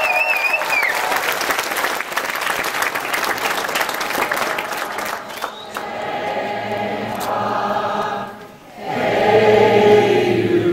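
Audience clapping and cheering, with a wavering whistle right at the start. About halfway through, the clapping gives way to a small group of voices singing together, which breaks off briefly near the end and then comes back stronger.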